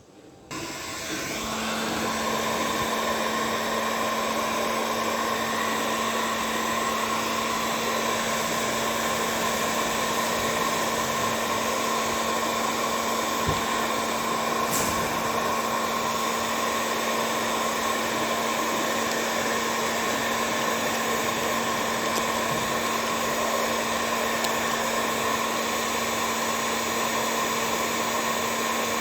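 A small electric power tool switches on about half a second in and runs at a steady speed, a constant whir with an even hum.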